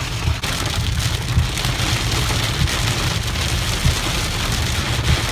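Rain falling hard on a car, with a steady low rumble underneath.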